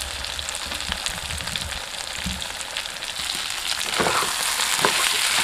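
Pigeon meat and potato pieces sizzling steadily in oil in a kadai, the meat fried until its oil has separated from the masala. About three and a half seconds in the sizzle grows louder as a slotted spatula stirs the pan, with a couple of scraping strokes near the end.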